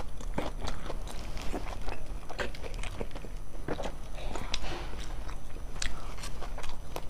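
Close-miked mouth sounds of a person eating: chewing and biting with many irregular small wet clicks and smacks.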